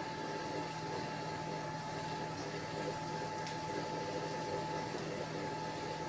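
Steady electrical hum with a constant high tone over even background noise, and a few faint clicks.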